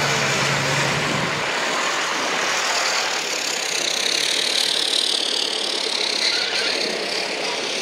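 Lifted off-road 4x4s on big mud tyres driving slowly past on a dirt track, engines running. A low engine hum drops away about a second and a half in, leaving a steady, hissing noise of engines and tyres.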